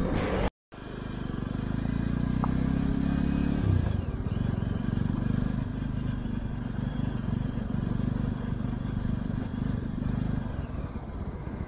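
Jawa 42 single-cylinder motorcycle engine running steadily under way. Its note shifts and turns rougher a little before four seconds in, then carries on at an even pace. A brief dropout comes just after the start.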